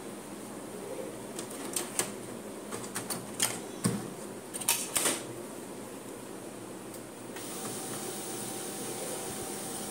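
Sharp plastic clicks and knocks from the Canon LBP6000 laser printer as its top cover is opened, the toner cartridge is pressed into place and the cover is shut, about a dozen strokes over three or four seconds. About seven seconds in, the printer starts a steady mechanical hum, its motor and fan running up after the cover closes.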